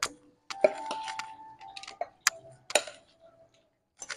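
Cat food bowls being set down one after another into a plastic feeding tray on a tile floor: a run of sharp clacks and clinks, some ringing briefly.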